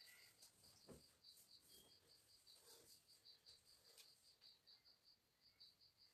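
Near silence with faint insect chirping: rapid, evenly spaced pulses, about five a second. A soft thump about a second in.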